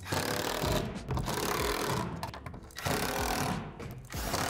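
Cordless drill driving screws through a plastic shed wall panel into the gable, running in about four short bursts of roughly a second each.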